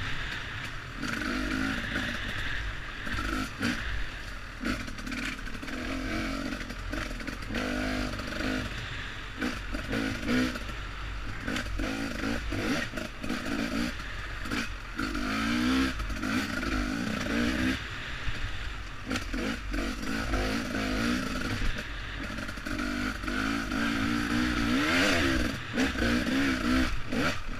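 2015 Husqvarna TE300's single-cylinder two-stroke engine being ridden hard, its pitch rising and falling over and over with the throttle. Short knocks and clatter from the bike running over rough ground, with a low rumble of wind on the helmet camera.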